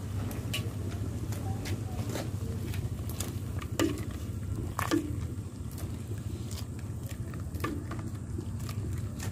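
A plastic ladle stirring clear spinach soup in a metal pot: liquid sloshing and scattered light knocks against the pot, two of them louder about four and five seconds in. A steady low hum runs under it.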